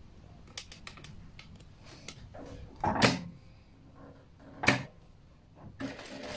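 Small clicks and knocks as fabric is set under the presser foot of a Bruce R5 industrial sewing machine, with a louder knock about three seconds in and a sharp click near five seconds. Near the end the machine starts stitching, running steadily.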